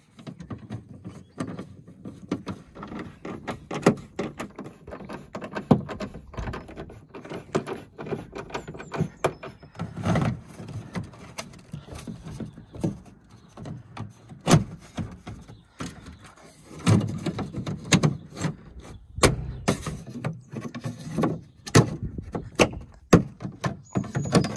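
Plastic tailgate trim panel on an Audi A6 C7 being handled, pressed onto its clips and fastened back in place, giving irregular sharp plastic clicks, taps and a few heavier knocks.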